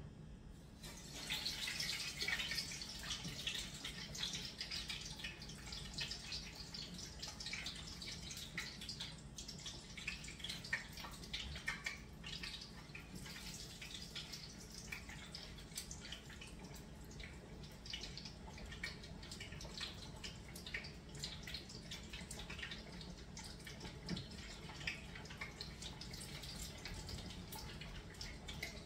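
Batter-coated chicken pieces frying in oil heated to 350°F, the oil sizzling and crackling. The sizzle starts about a second in, is strongest at first, then settles into a steady crackle.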